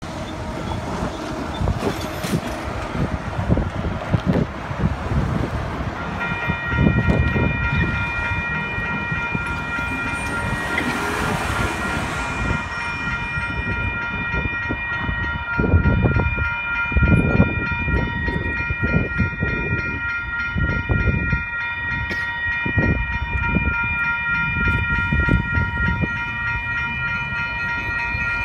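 WCH electronic grade-crossing bell starts ringing about six seconds in and keeps ringing without a break as the crossing activates for an approaching train. Road traffic rumbles beneath it.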